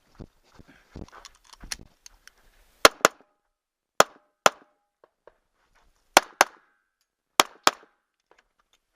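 Taurus 1911 9mm pistol fired in four quick pairs, eight shots in all, each pair a fraction of a second apart and the pairs about a second or more apart. Softer knocks and shuffling come before the first shot.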